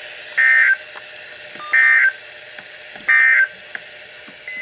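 Emergency Alert System end-of-message data burst: three short warbling digital tone bursts, evenly spaced a little over a second apart, signalling the end of the alert. A steady radio hiss runs underneath.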